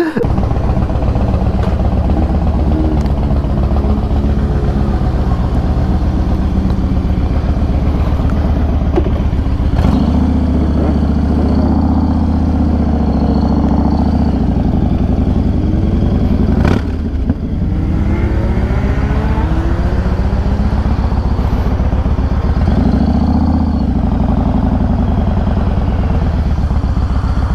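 Yamaha Raider cruiser's 1900 cc V-twin engine running under way, its pitch rising and falling several times as it accelerates and shifts, with one brief drop about seventeen seconds in.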